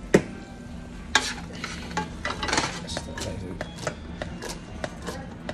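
A utensil stirring a coconut-milk sauce in a cooking pot, clinking and knocking against the pot about eight times at irregular intervals, the loudest knock just after the start.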